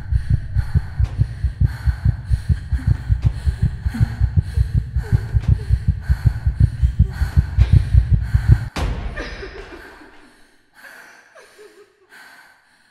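A fast heartbeat sound effect with quick, gasping breaths over it. The heartbeat cuts off suddenly about nine seconds in, leaving a few fading breaths, then silence near the end.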